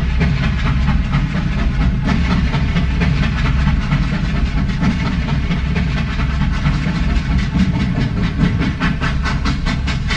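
Steam train running: a steady rumble with hiss over it and a regular beat of about five strokes a second, clearer near the end.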